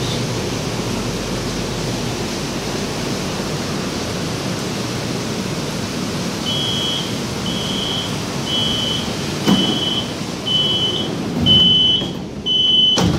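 Heavy rain hissing steadily, then from about halfway the CSR Zhuzhou light-rail train's door warning beeps high and repeatedly, about once a second, as the doors try to close and stick. Two knocks of the sliding doors are heard, about three quarters of the way through and at the very end.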